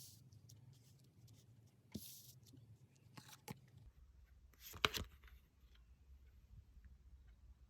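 Soft rustles and light taps of tarot cards being handled, a few scattered strokes with the loudest cluster about five seconds in, over a faint low hum.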